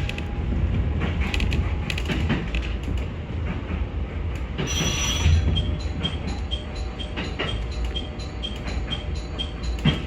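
Railcar running in the driver's cab. About four and a half seconds in, the ATS-Sx alarm sounds: a brief ringing burst, followed by the warning-continuation tone, a short high beep repeating about twice a second over the running noise.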